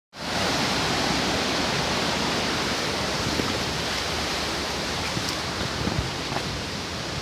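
Steady rush of falling water from a waterfall or stream, easing off slightly, with a few faint clicks over it.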